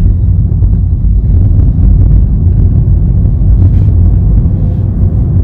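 Steady low rumble of a car's engine and tyres heard from inside the cabin while driving along a town road.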